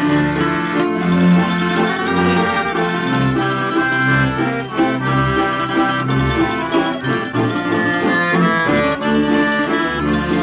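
Instrumental passage of a Slovak folk song: an accordion plays the melody over a band accompaniment with a pulsing bass line.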